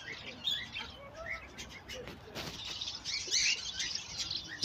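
A flock of small birds chirping and chattering at once, with many quick rising chirps overlapping without pause.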